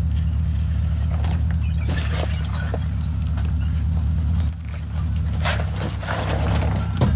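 Porsche Cayenne Turbo S's twin-turbo V8 running low and steady as the SUV crawls over a rock ledge, with scattered crunches and knocks of tyres on rock and gravel.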